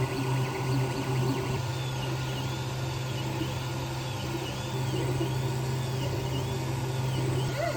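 Ender 3 3D printer running a print: a steady fan hum with the stepper motors whining, the whine rising and falling in pitch about once a second as the print head moves back and forth.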